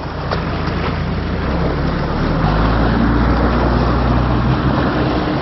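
A nearby fishing boat's inboard engine running as the boat pulls away, its note strengthening and getting louder about halfway through as it throttles up.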